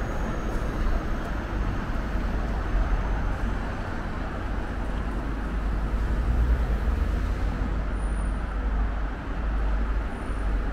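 Steady rumble of city road traffic, an even wash of engine and tyre noise with no distinct single vehicle standing out.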